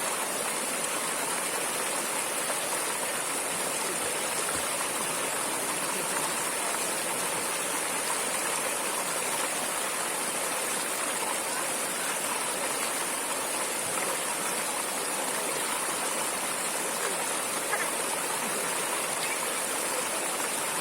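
Water flowing in a stream, a steady even rushing with a constant high hiss above it.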